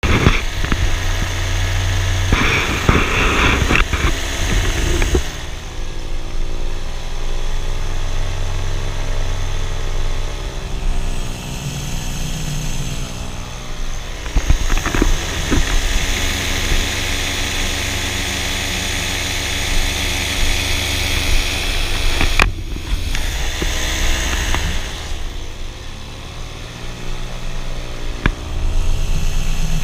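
Paramotor engine and propeller running steadily in flight, its pitch dipping and recovering a few times as the throttle changes, with a low rumble of wind on the microphone.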